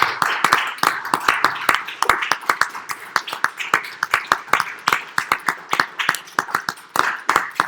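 A small group of people applauding, the separate hand claps distinct and uneven.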